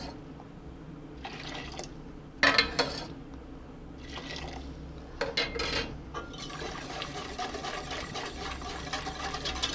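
Ladlefuls of hot chicken stock poured into a stainless steel pot of thick roux-based soup, in several short splashing pours. From about six seconds in, a wire whisk stirs steadily through the soup in the metal pot.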